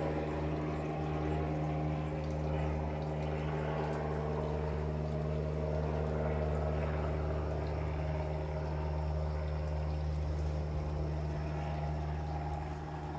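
Steady low machine hum, like a motor running, with a light hiss above it.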